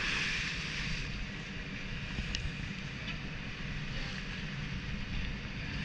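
Sea water splashing and settling after a scuba diver's jump entry, the spray hiss fading over the first second or so. Under it runs a steady low rumble from the dive boat.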